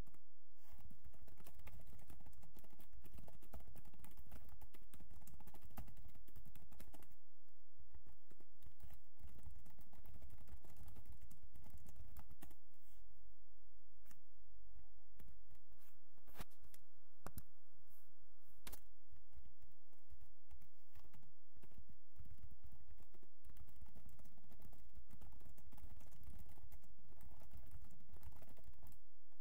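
Computer keyboard typing: runs of rapid keystrokes, thinning out near the middle to a few single, louder clicks before fast typing resumes.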